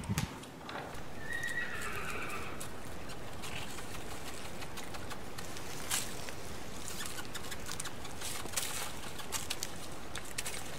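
A horse whinnies once, starting about a second in: a single falling, quavering call lasting about a second. A steady hiss with scattered light clicks and knocks follows.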